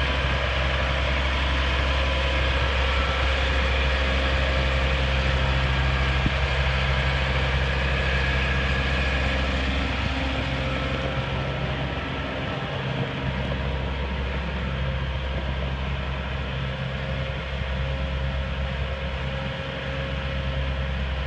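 2001 Case IH MX270 MFWD tractor's diesel engine idling steadily, a little quieter from about halfway through.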